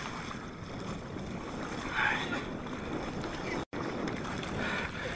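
Wind buffeting the microphone over open water, with a brief higher sound about two seconds in and an instant where the sound cuts out completely a little past halfway.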